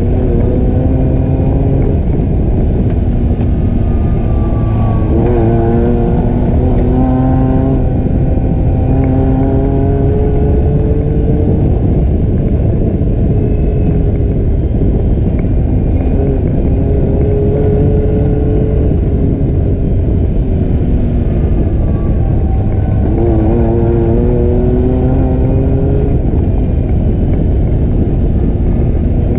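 ATV engine running on the trail, its pitch climbing several times as the throttle opens and sinking back between, over a heavy low rumble.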